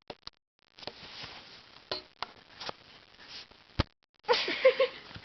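Scattered small clicks and knocks of utensils handled against a hard surface, with breathy noise between them. A louder breathy sound with a brief pitched part comes about four seconds in.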